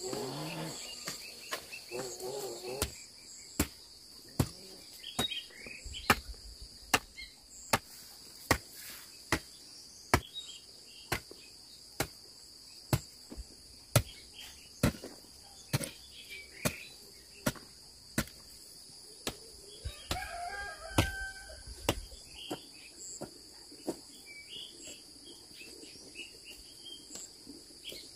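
Insects droning steadily in a high, even tone, with fowl clucking briefly near the start and again about two-thirds through. A sharp tick repeats a little more than once a second through most of it and stops about three-quarters of the way through.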